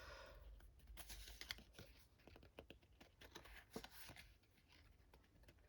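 Faint crinkling and tearing of a foil trading-card booster pack wrapper being torn open by hand, a run of small irregular crackles and clicks.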